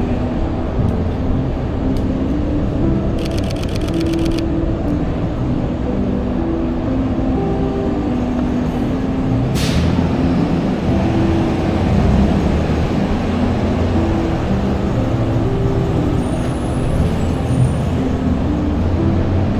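A steady low rumble of city and vehicle noise under background music with short held notes. About three seconds in there is a quick run of evenly spaced clicks, and near the middle a single whoosh.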